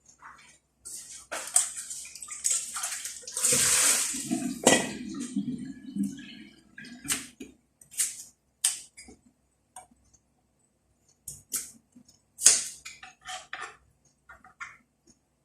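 Cooking sounds at the pan: a splash of liquid about three and a half seconds in, with scattered clinks and scrapes of a utensil against cookware.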